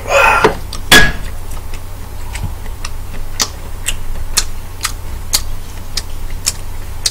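A mouthful of prawn being chewed close to the microphone: a string of small wet mouth clicks, about two a second, after a sharper knock about a second in, over a steady low hum.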